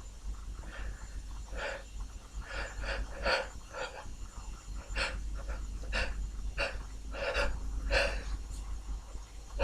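A person's run of short, sharp sniffing breaths through the nose, about a dozen quick catches in a row: the hitching in-breaths of a sneeze building up.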